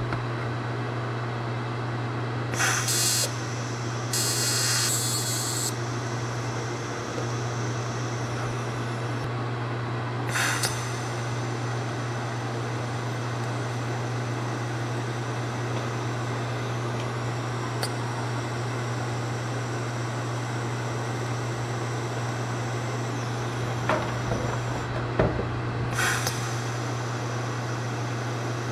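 TIG welding arc running steadily as an exhaust hanger rod is welded onto the exhaust pipe: an even buzzing hum under a hiss, with a few brief louder crackles along the way.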